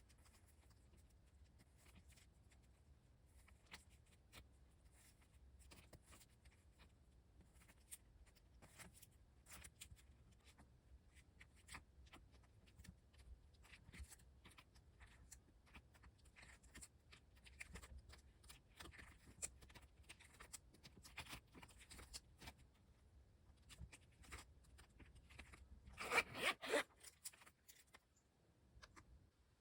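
Quiet handling of album and photocard packaging: scattered small clicks and rustles, with one louder brief rasp near the end.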